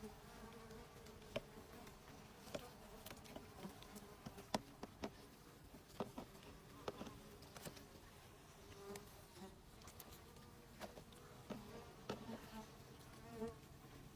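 Honeybees buzzing faintly and steadily around a hive, with scattered small clicks and taps.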